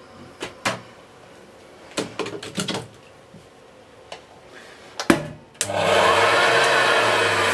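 Hoover Senior upright vacuum cleaner switched on with a click about five seconds in, its motor then running loud and steady with a low hum and a whine that glides up and back down. Before that come a few knocks of handling.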